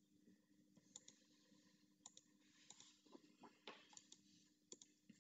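Near silence with faint sharp clicks, several in close pairs, every second or so.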